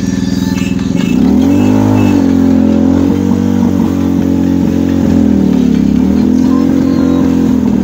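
Engine of a homemade Lamborghini replica car running as the car drives slowly past. It revs up about a second in, and the engine note then dips and rises again twice.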